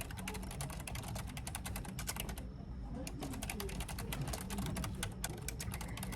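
Typing on a computer keyboard: rapid runs of key clicks, with a short pause about two and a half seconds in, over a steady low hum.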